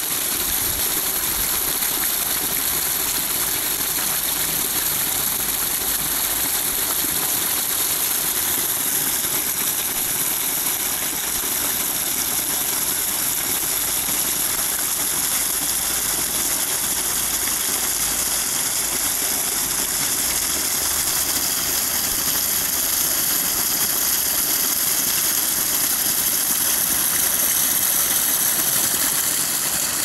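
Creek water rushing steadily over a small waterfall, an even, unbroken hiss and splash.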